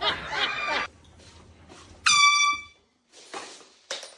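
Handheld air horn sounding once in a short, loud, high-pitched blast about two seconds in.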